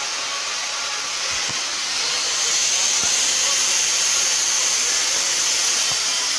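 Steady, loud hiss of rushing noise that grows slightly louder about two seconds in, with a few faint knocks.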